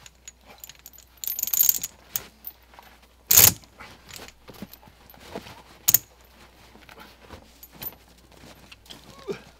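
Heavy steel tyre chains being handled on a forestry machine's wheel: links clinking and jangling in scattered clicks, with a rattling run about a second in and a loud metal clank about three and a half seconds in, another near six seconds.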